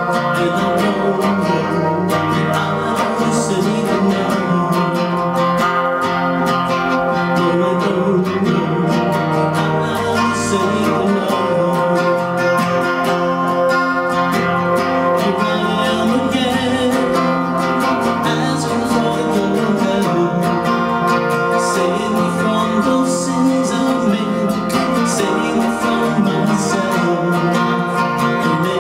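A man singing a praise song to his own strummed acoustic guitar.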